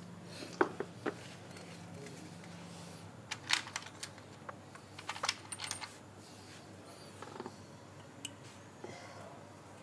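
Hand tools and small metal motorcycle parts being handled: scattered light clicks and clinks in small clusters, a few with a brief metallic ring.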